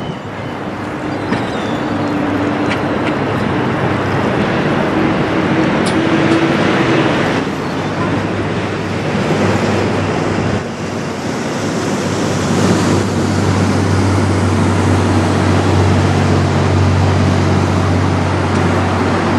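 Steady rush of wind and river water under a low engine hum from passing vessels. In the second half a deeper boat-engine hum builds and holds as a pilot boat runs past at speed.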